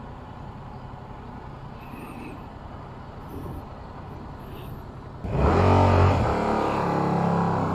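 Yamaha R7's 689 cc parallel-twin engine running quietly at first. About five seconds in it suddenly turns loud under hard acceleration.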